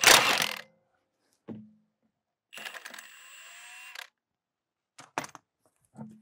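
Milwaukee M18 Fuel cordless impact wrench hammering a tight lug nut loose, stopping under a second in. About two and a half seconds in it spins the nut out with a rising whine for about a second and a half. A couple of sharp metallic clicks follow near the end.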